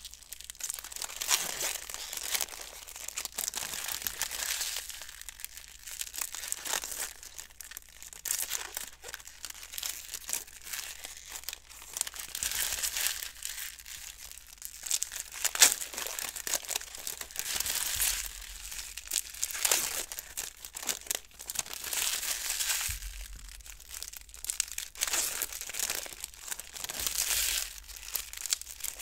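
Trading card packaging, plastic and foil pack wrappers and box wrap, crinkling and tearing as it is handled and opened, in irregular bursts.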